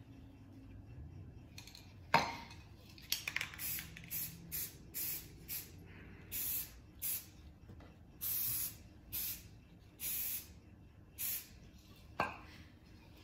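Rust-Oleum Camouflage aerosol spray paint can hissing in about a dozen short bursts, two of them longer, as a lighter camo colour is sprayed over black. A sharp click comes about two seconds in and a knock near the end.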